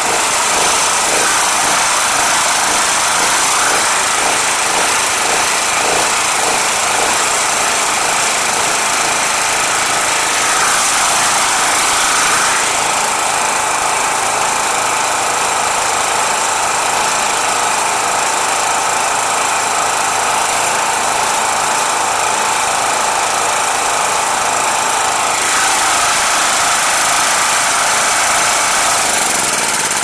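Jiangdong JF200 generator's small single-cylinder gasoline engine running steadily while its carburetor is tuned after a no-start repair. Its note shifts about twelve seconds in and changes back near the end.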